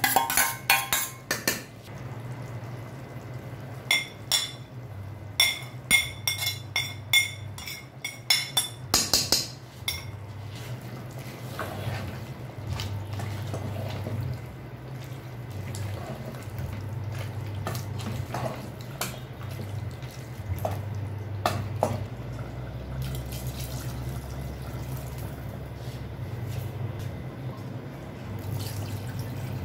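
Steel spoon and plate clanking against the rim of an aluminium pressure cooker, a run of sharp metallic clanks about two a second in the first ten seconds, as chopped tomatoes are knocked into the pot. After that come softer scrapes and clicks of stirring over a steady low hum, and water poured into the pot near the end.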